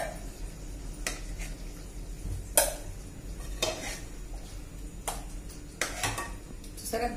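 A steel spoon clinking and scraping against a steel bowl and a pressure cooker pot while thick curry is scooped. There are about seven sharp clinks at uneven intervals, the loudest about two and a half seconds in.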